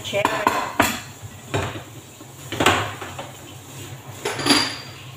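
Enamelled pots, a lid and a stainless steel bowl clanking as they are handled and set down on the kitchen counter: several separate knocks spread over a few seconds, the last one near the end ringing briefly.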